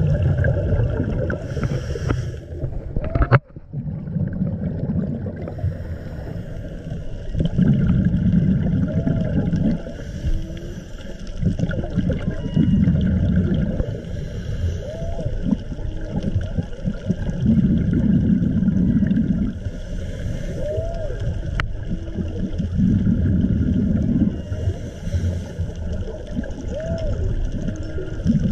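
Diver breathing underwater: exhaled bubbles gurgle in bursts of a second or two, about every five seconds, over a steady background hiss of the water.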